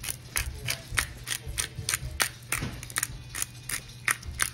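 Pepper grinder being turned to season the chicken, clicking steadily about four times a second.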